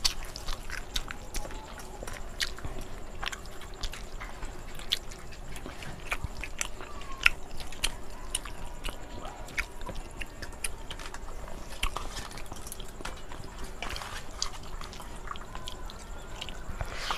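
Several people eating rice and curry with their hands: chewing and mouth sounds, with scattered light clicks and clinks against steel plates.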